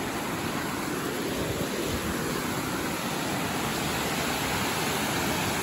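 Waterfall rushing steadily, pretty loud.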